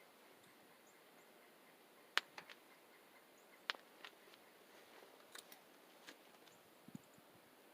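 A few sharp, irregular clicks and ticks over near silence, the loudest about two seconds in, with faint high bird chirps in the background.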